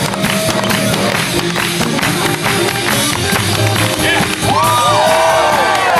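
Swing music playing loudly with a steady beat for lindy hop dancing, with crowd noise from the onlookers.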